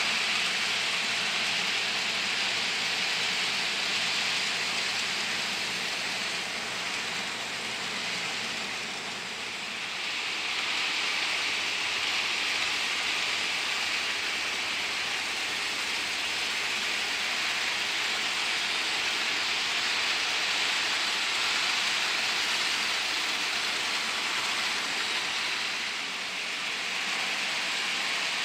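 HO scale model freight train, led by a Life-Like GP38 diesel locomotive, running on the track: a steady rolling hiss of wheels on rail and the model's motor. It dips a little twice, about a third of the way in and near the end.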